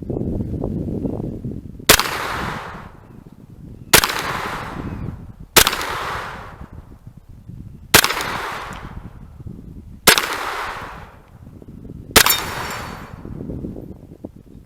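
Kel-Tec Sub2k 9mm carbine fired in slow, single shots, six reports about two seconds apart, each followed by a fading echo, with another shot right at the end.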